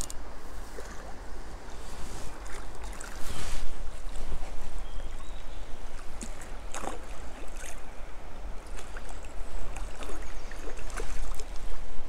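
Low rumble of wind on the microphone, with scattered rustling and light clicks.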